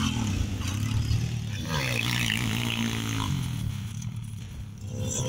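Pitbike engine revving up and easing off, its pitch rising and falling as it rides the track, fading somewhat near the end.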